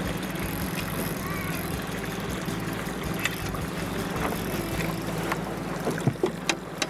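Boat motor running steadily at trolling speed, a low even hum, with a few sharp clicks and knocks near the end.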